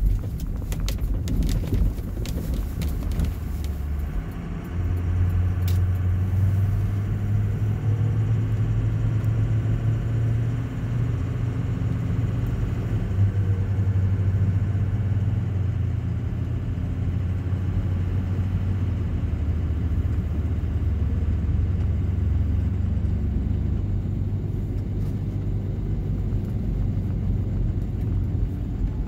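Car driving on a snow-covered road, heard from inside the cabin: a steady low engine and road drone that shifts in pitch a few times as the speed changes. There are scattered sharp clicks in the first few seconds.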